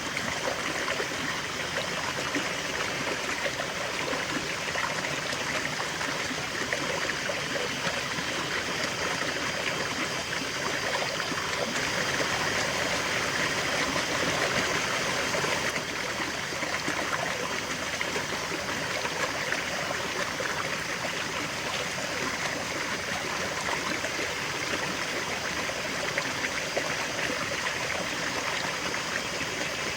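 A river flowing: a steady rush of water over stones, with trickling and gurgling in it.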